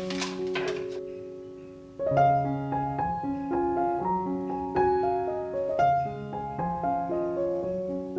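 Gentle piano music playing a slow melody over chords, with notes struck and left to ring.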